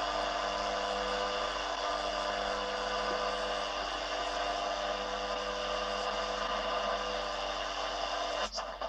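ICOM IC-R8500 communications receiver tuned by hand across the 17 MHz shortwave band in AM: steady static hiss with a few steady hum-like tones under it. About eight and a half seconds in, a broadcast station's speech comes through.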